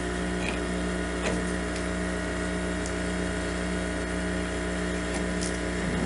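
Steady electrical or mechanical hum made of several fixed tones, with a few faint ticks.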